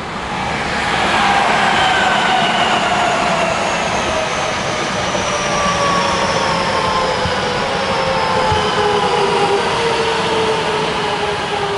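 Tokyo Metro Hanzomon Line-stock electric train passing at close range, its traction motors giving a loud, high-pitched whine of several tones that slowly fall in pitch, over the rumble of wheels on rail.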